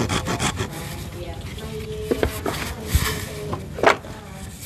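Wood being sawn by hand in quick back-and-forth strokes that stop about half a second in. Scattered knocks and scrapes of the wood follow, the loudest near the end.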